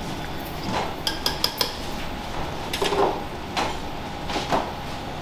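Stainless-steel pots and utensils clinking and knocking: a quick run of light metallic clinks in the first second and a half, then three duller knocks a little under a second apart, over a steady background hum.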